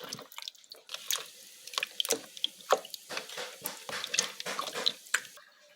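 Water splashing and dripping as flour-coated raw chicken pieces are rinsed by hand under a running kitchen tap, in irregular splashes that die away near the end.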